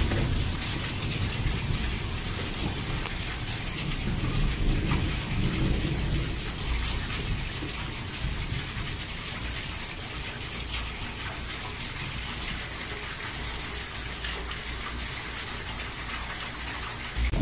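Heavy rain pouring down on a street, a steady hiss with a low rumble underneath. It is louder for the first few seconds, then settles to an even downpour.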